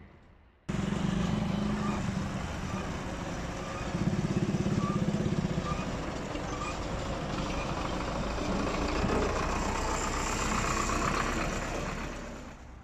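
Diesel farm tractor engine running close by as it tows a loaded trolley over a railway level crossing. The sound starts abruptly about a second in, swells with a heavy pulsing chug for a moment, and fades near the end.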